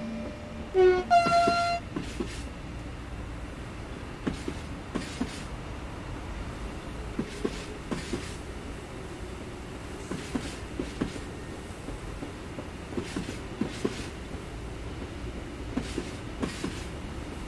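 Class 185 electric locomotive sounding two short horn toots about a second in, a lower note then a higher one. Then a freight train rolls past with a steady rumble, the wheels clicking over rail joints in pairs every second or two.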